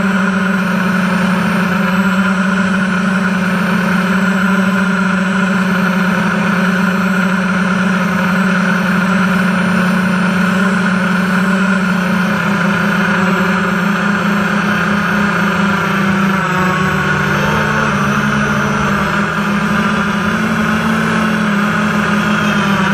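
FPV model aircraft's motors and propellers buzzing loudly and steadily, heard from the GoPro mounted on the airframe. The pitch dips and rises a little in the second half as the throttle changes.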